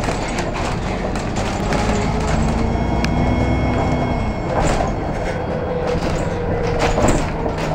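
Inside a moving bus: the engine's steady low drone with rattles and knocks from the body and fittings. A brief high ringing tone sounds about three seconds in, and a louder knock comes near the end.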